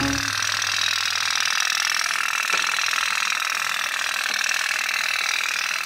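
Candle-heated pop-pop (putt-putt) toy steam boats running, with a loud, steady, rapid popping rattle like a tiny engine idling.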